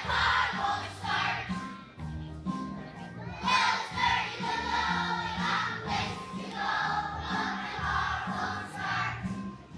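A group of children singing a song together over an instrumental accompaniment with a moving bass line.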